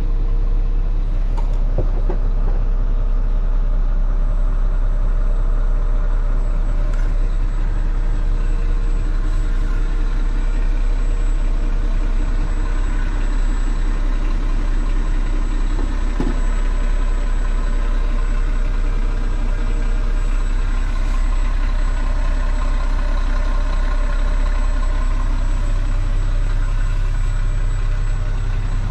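2011 Mack GU713 dump truck's diesel engine idling steadily, heard from inside the cab.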